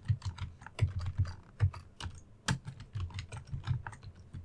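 Computer keyboard keystrokes: an irregular run of separate key clicks, a few a second, as a terminal command is typed.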